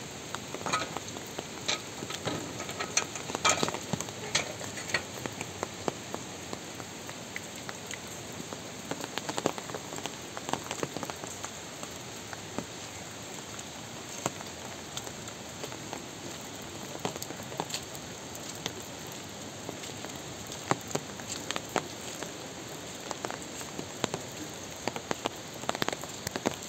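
Steady rain: a constant hiss with many close, sharp drops tapping irregularly throughout.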